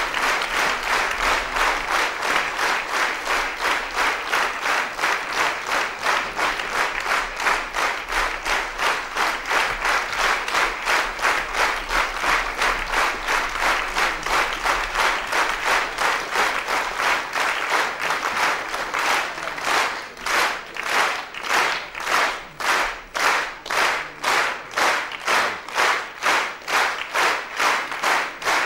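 Theatre audience applauding in rhythmic unison clapping, a steady even beat. About two-thirds of the way through, the claps become sharper and more separate.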